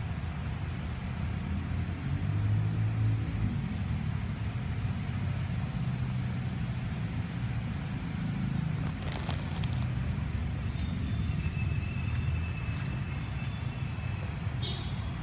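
Steady low rumble of road traffic, vehicle engines running on a nearby street. In the second half come a few faint high-pitched chirps and light clicks.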